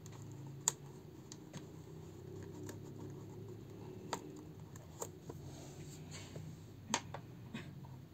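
Faint plastic clicks and light scraping from Vorago HPB-401 over-ear headphones being handled, with the earcup and headband joint flexed in the hands. There are a few sharp clicks, the loudest near the end, over a faint steady low hum.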